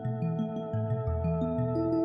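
Background music: quick, evenly paced notes over sustained chords and a low bass line, with no narration.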